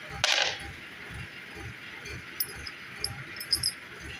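A short rattling scrape just after the start, then a few light metallic clinks of small steel bolts being handled on a workbench, over a low pulsing hum about twice a second.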